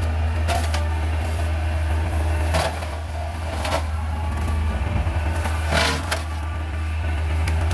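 Kubota excavator's diesel engine running with a steady low drone, with several sharp cracks scattered through as brush is cut and broken.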